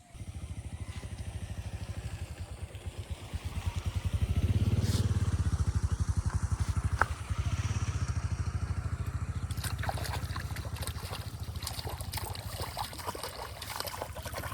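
An engine starts running at a steady low, rapid thud, loudest about four to six seconds in. From about ten seconds in, quick crackling or splashing noises come over it.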